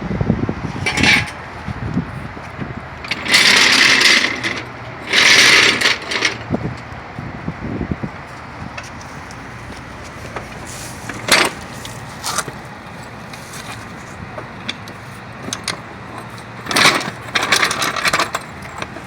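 Metal rattling and clanking from a car jack and tools being handled on the ground. There are two rattling bursts of about a second each, roughly three and five seconds in, sharp knocks later, and a longer rattle near the end.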